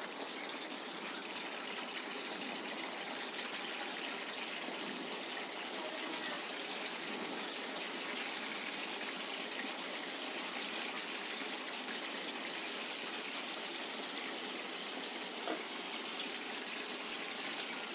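Chicken lollipops sizzling steadily in hot oil in a kadhai, deep-fried a second time to crisp the coating.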